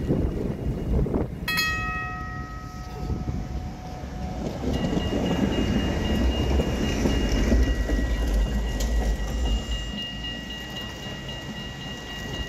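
Rail vehicle rumbling along. A single ringing clang comes about a second and a half in and dies away over a few seconds, and a steady high-pitched squeal sets in about halfway through and holds.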